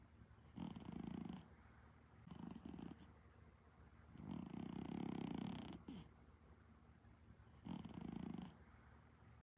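Exotic Shorthair cat snoring in its sleep, a snore on each breath: three louder snores about three and a half seconds apart, with a softer one between the first two. The snoring is typical of the breed's flat face.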